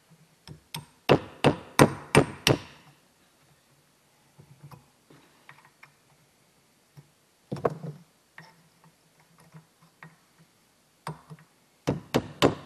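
Hammer striking a pin punch to drive a roll pin out of a clutch hydraulic fitting. The blows come in quick runs of sharp knocks: about seven in the first two seconds, a couple near the middle, and another quick run at the end.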